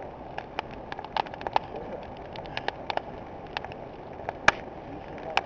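Campfire crackling: irregular sharp pops and snaps over a steady background hiss, with one louder pop about four and a half seconds in.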